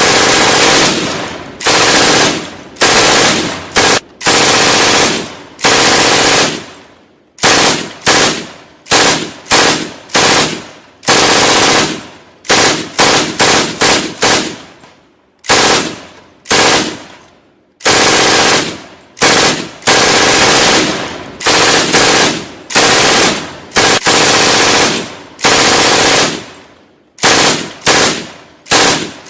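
Gunfight sound effect: repeated short bursts of automatic gunfire, one after another every second or two, each fading away in an echoing tail.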